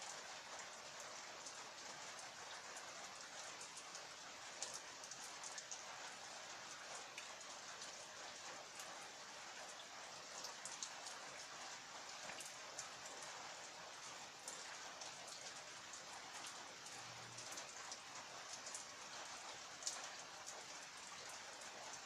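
Steady rain falling, a soft even hiss with scattered louder drops ticking on a surface.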